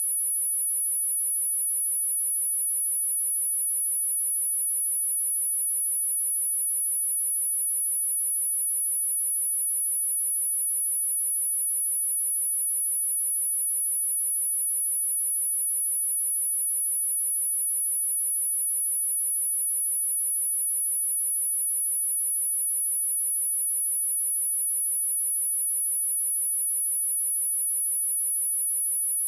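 A pure 11028 Hz sine-wave test tone, one very high steady pitch held at a constant level.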